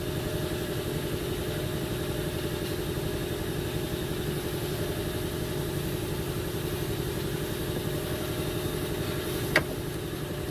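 An engine idling steadily, with one sharp click near the end.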